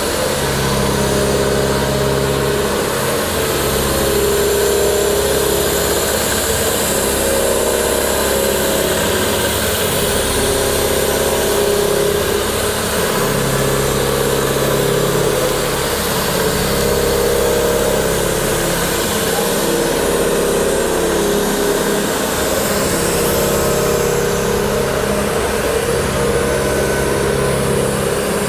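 Olivetti CNC horizontal boring mill running: a steady machine hum with low tones that drop out and come back every few seconds.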